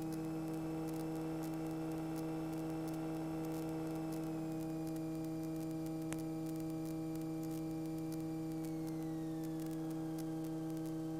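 Steady electrical hum and static on the cockpit intercom audio feed, with a faint high whine that slides down in pitch about eight to nine seconds in. One faint click about six seconds in.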